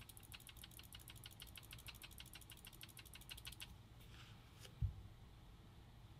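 Electronic paintball marker, a WDP Angel Speed, clicking fast and evenly, about nine clicks a second, for roughly three and a half seconds, then a couple of single clicks. A short low thump follows about five seconds in.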